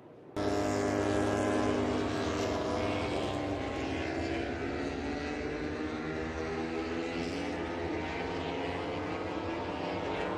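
An engine running steadily, cutting in abruptly a moment in, its pitch drifting slightly up and down.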